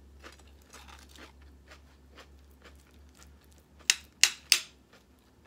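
Quest protein chips crunching and snapping as they are handled and broken over a plate: soft crackling, then three sharp crunches in quick succession about four seconds in.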